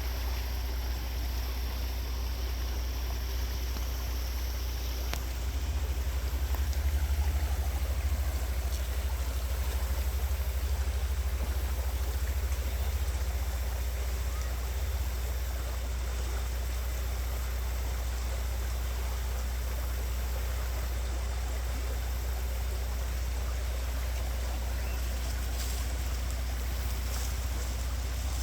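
Credit River water running with an even rush, over a steady low rumble that is the loudest part of the sound. The sound swells a little for several seconds about a fifth of the way in.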